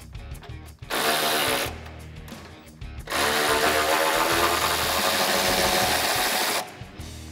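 Cordless power tool spinning a 13 mm socket to unbolt the exhaust hanger bolts from the car's frame: a short run about a second in, then a longer run of about three and a half seconds. Background music plays underneath.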